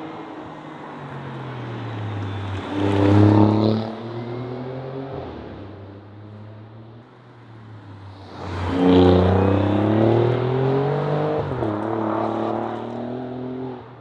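Alfa Romeo Giulia Quadrifoglio's twin-turbo V6 with a Pogea Racing exhaust, accelerating hard. The car goes past close about three seconds in, its pitch falling as it passes. From about eight and a half seconds a second, louder run rises steeply in pitch, breaks off briefly at a shift and climbs again.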